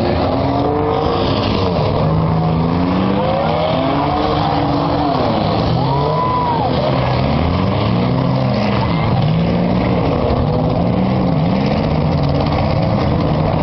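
Several demolition derby cars' engines revving at once, each pitch rising and falling as they accelerate and back off, over a steady din of engine and tyre noise.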